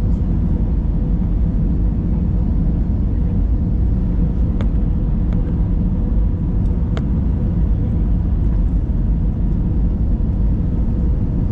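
Steady cabin noise inside an airliner in flight: a loud, even low rumble of engines and airflow with a faint constant hum, broken by a few light clicks.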